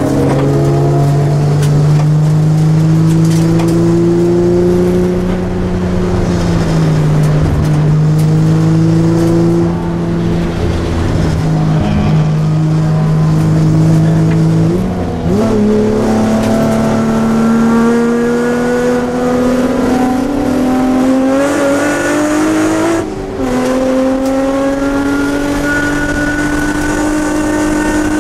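Nissan Sentra SE-R race car's engine heard from inside the cabin, running hard at high revs with its pitch climbing slowly as it pulls through the gears. The pitch drops suddenly at upshifts about six and a half and twenty-three seconds in, and jumps up sharply at a downshift about fifteen seconds in.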